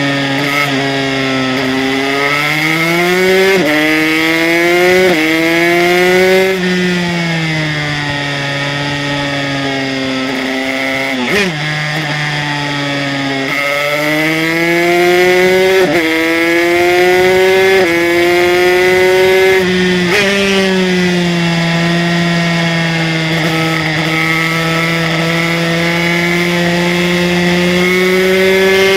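Aprilia RS125's two-stroke single-cylinder engine, fitted with an HTM Racing 144cc kit, revving hard under full throttle. The pitch climbs and drops suddenly at each upshift, and falls for a few seconds in the middle while the bike slows for a corner.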